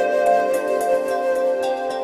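Instrumental new-age background music with long held notes.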